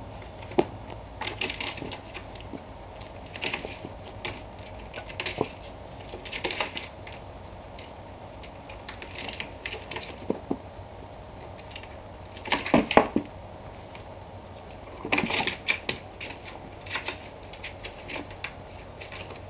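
A kitten's claws scrabbling and clicking on a plastic laundry basket as it climbs over the rim, in irregular spells of quick rattling clicks, the loudest a little past halfway.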